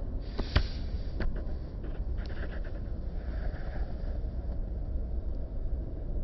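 Steady low rumble of a car's engine and tyres heard from inside the cabin, with a sharp click about half a second in and a few fainter knocks after it.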